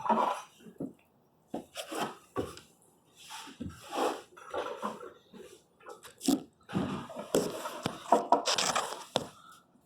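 Irregular scraping, rustling and a few light knocks of hand tools being handled on a wooden stair stringer during layout. The scraping comes in spells about two seconds in, about four seconds in, and from about seven to nine seconds in.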